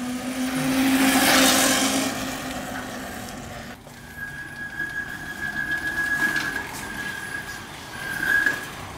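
Electric motorcycle (a Honda CB750 converted to electric drive) riding past: a steady motor whine with a rush of tyre and wind noise that peaks about a second in. After a cut, a thinner, high steady whine runs on as the bike rolls slowly in, stopping just before the end.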